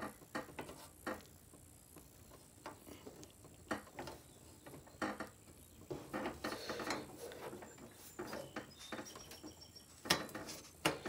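Screwdriver working a tight screw on a computer's hard drive cage: irregular metal clicks and short scrapes as the bit grips, slips and turns, with a louder clatter near the end.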